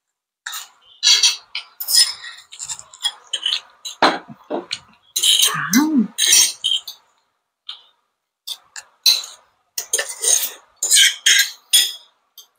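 A metal fork and spoon clinking and scraping against a ceramic plate and glass bowl as noodles are served onto the plate, in quick irregular clicks throughout.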